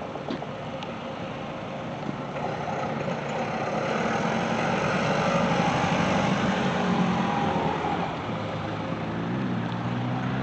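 A motor vehicle's engine passing by, growing louder to a peak around the middle and then fading.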